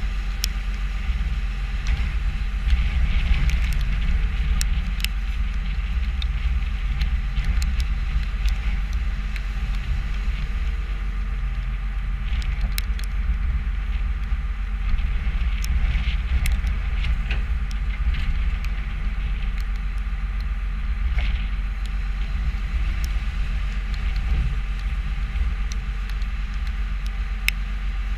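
New Holland skid steer's diesel engine running steadily under load, with scattered sharp clicks and knocks.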